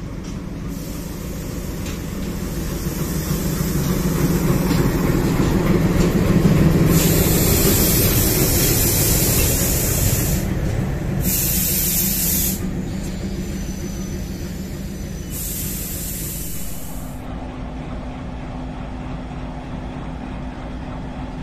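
Express train of coaches rolling past at slow speed behind a WDM-3A diesel locomotive: wheel and rail noise with stretches of loud hissing, loudest about seven seconds in. About seventeen seconds in the sound changes to the steady hum of the WDM-3A's diesel engine idling.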